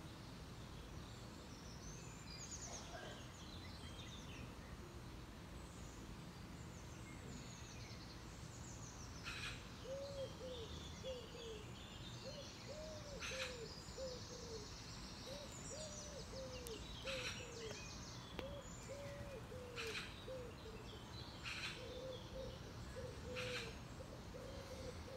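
Garden birdsong, with short high chirps every second or two. From about ten seconds in, a pigeon is cooing in a low, steadily repeated series of notes.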